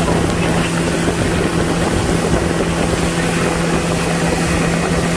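An engine running steadily at constant speed: an even drone with a fixed hum over rushing noise, with no change in pitch.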